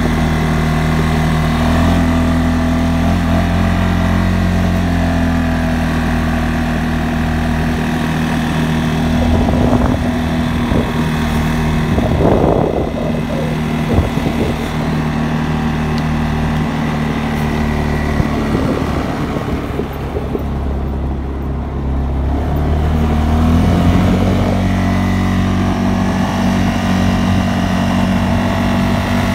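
CFMOTO CFORCE 600 ATV's single-cylinder, liquid-cooled engine running steadily under way. Through the middle stretch the steady engine note drops back under irregular knocks and rattling from the gravel track. It comes back strongly a few seconds before the end.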